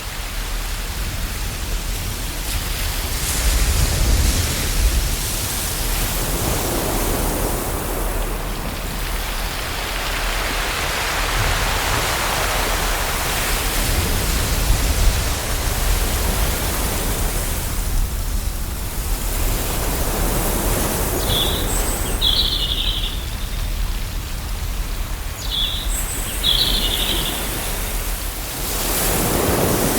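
Ocean surf washing in a continuous hiss that swells and recedes every several seconds. In the second half a bird gives two short pairs of high chirps.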